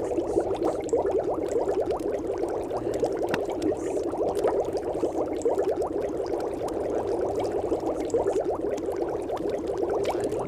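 Continuous bubbling, water-like sound: a dense, even stream of small bubbles that does not change. It is the masking background track of a subliminal recording.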